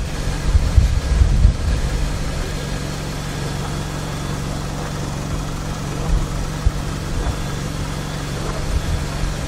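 Volkswagen Jetta's engine idling steadily, with wind gusting on the microphone for the first couple of seconds.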